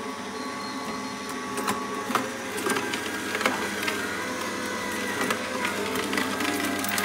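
Endever Sigma 95 slow auger juicer's motor running with a steady hum; from about a second and a half in, sharp cracks and crunches join it as carrot pieces are crushed by the auger.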